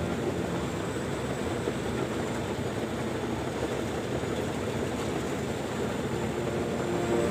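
Komatsu D85ESS crawler bulldozer running: a steady, low mechanical noise from the diesel engine and tracks.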